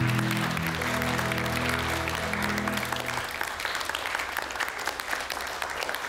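Audience applauding, with a held chord of music over the clapping that cuts off about three seconds in; the applause then carries on alone and gradually thins out.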